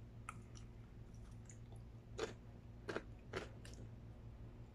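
A person chewing a bite of crunchy, breaded, deep-fried boneless chicken. The chewing is faint, with a few short crisp crunches in the second half.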